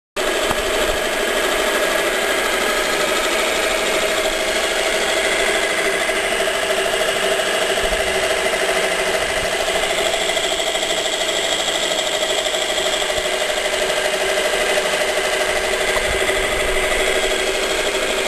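Homemade scroll saw driven by an electric jigsaw, running steadily with an even mechanical hum.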